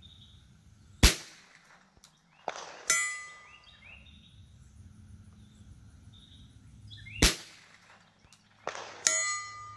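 A hanging steel gong target hit twice by .22LR rifle rounds fired from 400 yards. Each time there is a sharp crack, then about two seconds later a clang that rings on for about a second.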